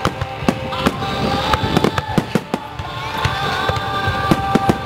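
Aerial firework shells bursting in a rapid, irregular barrage of bangs and crackles.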